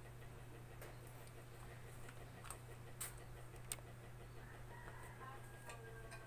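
Steady low hum with a few light clicks in the first half, then a faint, drawn-out animal call from about two-thirds of the way through to the end.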